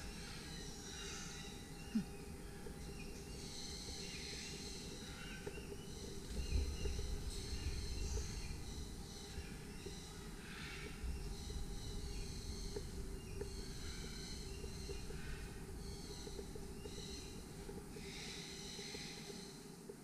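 Several birds in a walk-in aviary chirping and calling, short high calls overlapping and repeating all through. A sharp click about two seconds in and a low rumble between about six and eight seconds.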